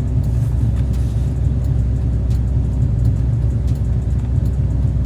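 Steady low engine and road rumble inside a car's cabin while driving.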